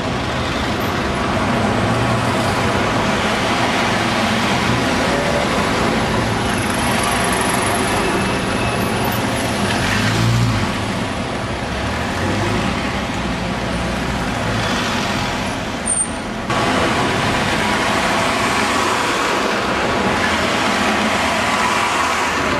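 Busy city street traffic: Routemaster double-decker buses and black taxi cabs running past, a steady mix of diesel engine rumble and road noise, with a bus going right by near the end.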